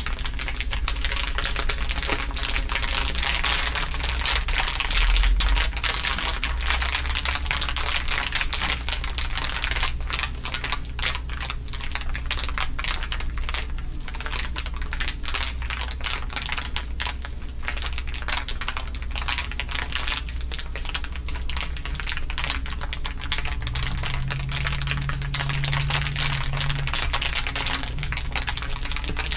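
Several layers of crinkling sounds mixed together into a dense, fast, continuous crackle, over a steady low hum.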